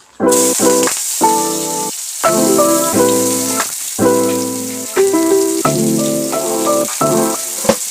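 Chopped green chillies sizzling in hot oil in a pan, the hiss starting suddenly just after the beginning, under background music of plucked string notes.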